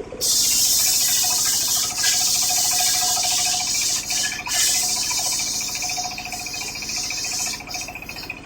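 Homemade circular saw ripping through coconut-palm timber: a loud hissing cut starts just after the beginning and lasts about eight seconds, easing briefly about two and four seconds in. Under it runs the steady drone of the engine driving the saw.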